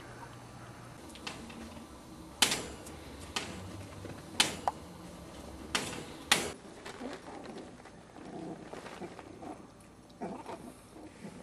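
Chihuahua puppies playing with toys: several sharp knocks and clicks about a second apart, then softer uneven scuffling.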